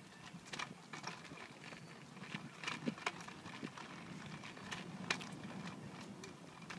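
Footsteps on a concrete sidewalk: a string of irregular sharp taps, roughly one or two a second.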